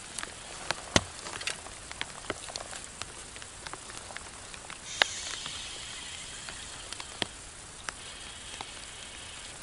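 Steady rain pattering, with scattered sharp drip ticks close to the microphone. Two louder clicks come about one second and about five seconds in.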